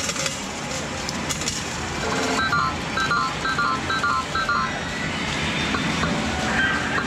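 Metal medals clinking as they are fed into the coin slot of a Sigma video poker medal machine, then a quick run of short two-tone electronic beeps from the machine lasting about two seconds, over a steady arcade din.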